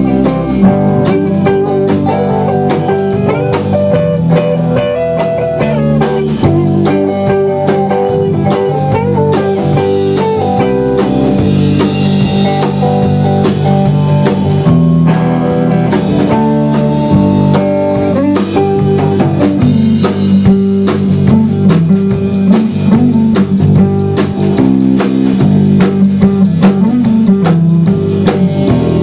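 Live band playing an instrumental passage on electric guitars, bass guitar and drum kit, without vocals.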